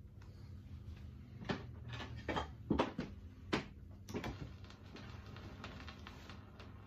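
A handful of faint, short knocks and clunks, clustered between about one and a half and four and a half seconds in, over a low steady hum.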